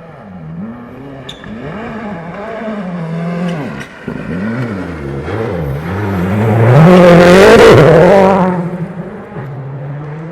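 Rally car engine revving hard and falling back again and again as it is driven through the gears, getting louder as it approaches. It passes closest about seven to eight seconds in with a rush of tyre noise, then fades.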